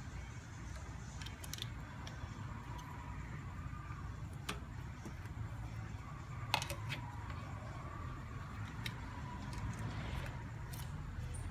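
Portable jump starter's clamps and cables being handled and fitted under a car's bonnet: scattered small plastic and metal clicks, the loudest about six and a half seconds in, over a low steady hum.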